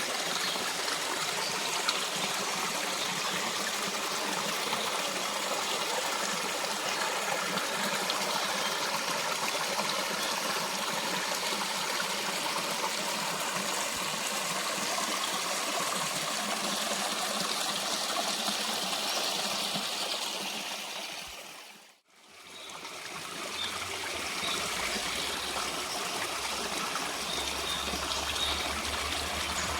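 Steady running water, like a stream flowing. About two thirds of the way through it fades briefly to silence and returns, now with a low hum underneath.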